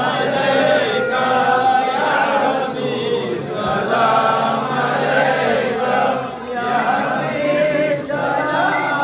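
A crowd of men chanting together in unison, a devotional chant sung in repeated phrases.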